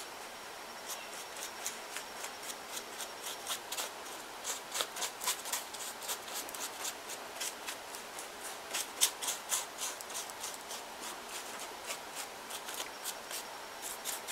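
Hands rubbing and pressing paper on a newspaper paper mache figure: a run of short, crinkly paper rustles, several a second, starting about a second in.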